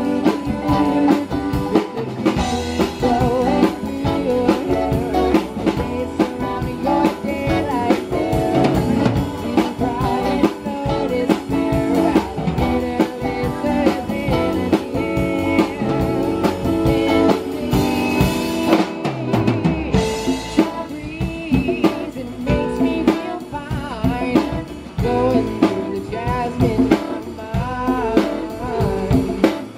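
Live band playing a rock song through a PA: drum kit, electric and acoustic guitars and keyboard, with a steady beat.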